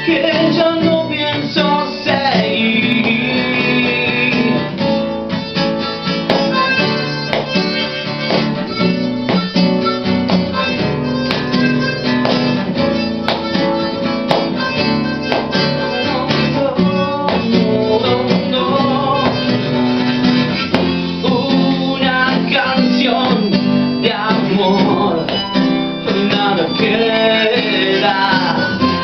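Instrumental break: a harmonica playing the melody over a nylon-string classical guitar accompaniment.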